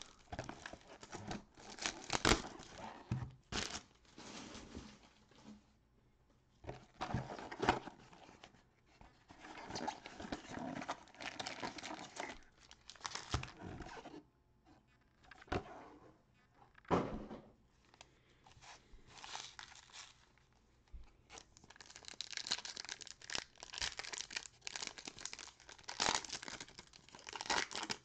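Cardboard trading-card box being torn open by hand, with sharp cracks of the cardboard, then a foil card pack crinkling and tearing open. The crinkling grows dense over the last few seconds.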